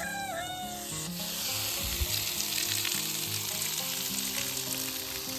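Water rushing steadily from a hose, switching on abruptly about a second in, over soft background music.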